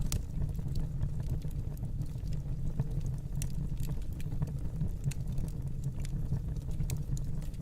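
Fireplace burning: a steady low rumble of flames with scattered, irregular sharp crackles and pops.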